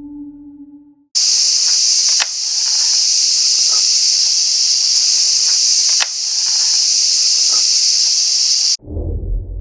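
Loud steady hiss of a heavily amplified recording that starts and stops abruptly, with a sharp click twice about four seconds apart; beneath it are faint soft puffs, the sound of a snakehead breathing air at the water surface.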